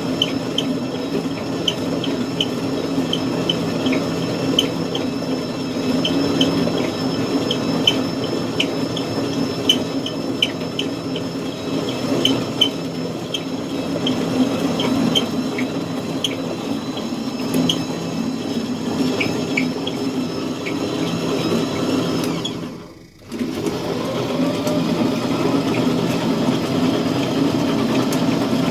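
Horizontal glassblowing lathe running: a steady motor hum with light, irregular ticking over it. The sound drops out briefly about 23 seconds in, then carries on.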